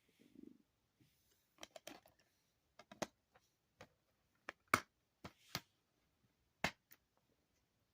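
Irregular clicks and knocks of small hard objects being handled, around fifteen in all over several seconds, with the sharpest near the middle of the run.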